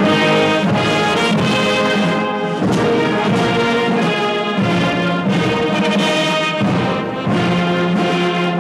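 Orchestral background music led by brass, playing sustained chords that change every second or two.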